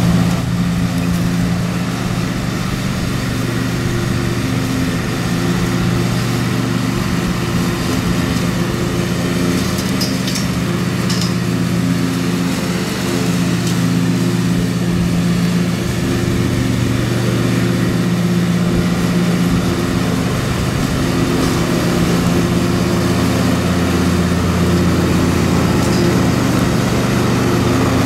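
Riding lawn mower's engine running steadily as it mows, its pitch shifting slightly a few times.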